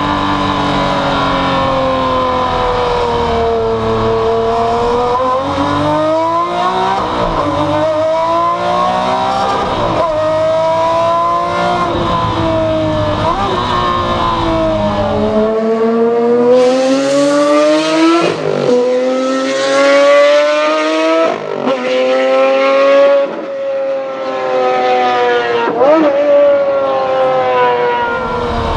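Maserati MC12 Corsa's V12 racing engine running hard, its pitch climbing through the gears and dropping sharply at each upshift, several times over.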